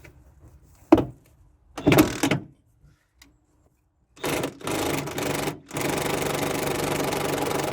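A handheld power tool's electric motor triggered in two short bursts, then run steadily, after two sharp knocks about a second apart.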